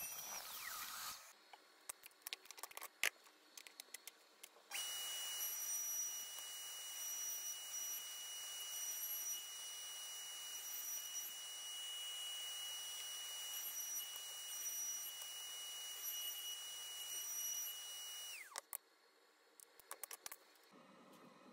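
A router mounted in a router table starts about five seconds in and runs with a steady high whine and hiss as wooden pieces are fed against the bit. Near the end it switches off and the whine falls away as the motor spins down. Light wooden clicks follow as the parts are handled and stacked.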